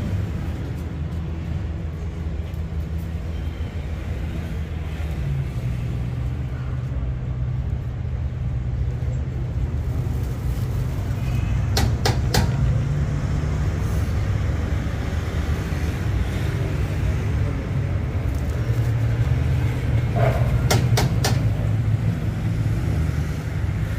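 A steady low rumble throughout, with sharp metal clinks of a ladle against the rim of a large metal cooking pot about halfway through and again a few seconds before the end.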